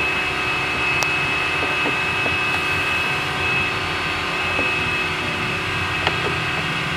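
A steady machine drone with a constant thin high whine, and a couple of light clicks as a screwdriver works the screws of a car's HVAC blower motor housing.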